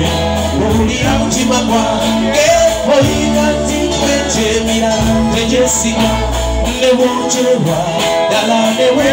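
Live band playing a song with a singer's voice over electric guitar, keyboard and drum kit, with a steady beat and a low bass line.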